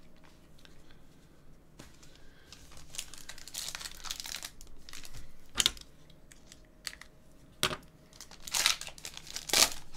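Foil wrapper of a Panini Select trading-card pack crinkling and tearing as it is worked open by hand, with a string of sharper crackles, the loudest near the end.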